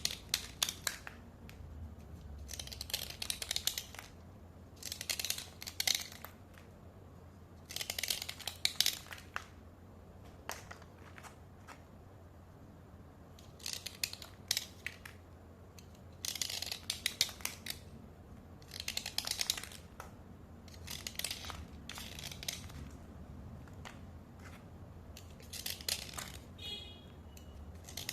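Slate pencils being scraped dry, in short bursts of scraping strokes about a second long, a dozen or so in all, separated by brief pauses.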